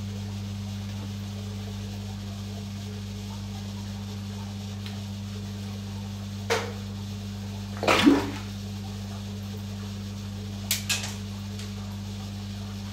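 A steady low electrical hum runs throughout. Over it come a few brief water splashes at the surface of an oscar fish tank: one about six and a half seconds in, the loudest cluster about eight seconds in, and two quick ones near eleven seconds.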